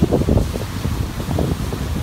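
Strong wind buffeting the microphone in irregular gusts, over the wash of rough surf breaking on a sandy beach.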